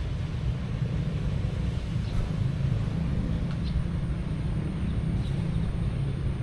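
Steady low rumble of outdoor background noise, with a faint high whine throughout and a few faint ticks.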